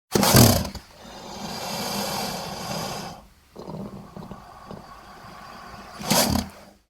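Nile crocodile vocalising: a loud burst at the start, then a long, noisy growl with a low pulsing buzz that breaks off briefly halfway, and a second loud burst near the end before it cuts off.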